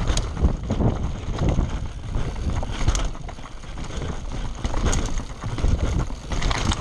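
Scott Spark 120 mm full-suspension mountain bike descending a rocky, loose trail: tyres rolling over stones, with frequent knocks and rattles from the bike as it hits rocks. Wind buffets the microphone.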